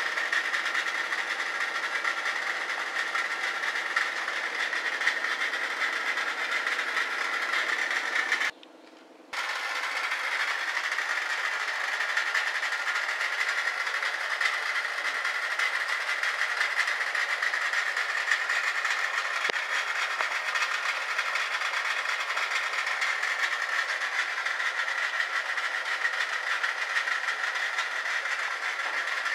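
Homemade soap-bubble machine running steadily, its motor and fan driving the turning bubble drum. The sound cuts out for about a second around eight and a half seconds in, then resumes.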